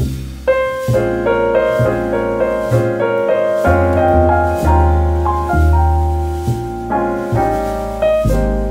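Background piano music: a gentle tune of separate notes over deep bass notes.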